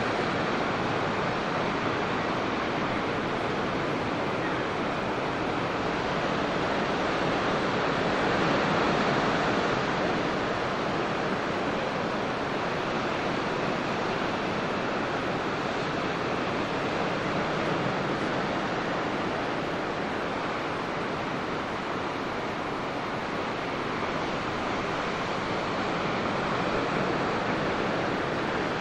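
Ocean surf: waves breaking and washing in as a continuous rush of sound, swelling a little about eight seconds in.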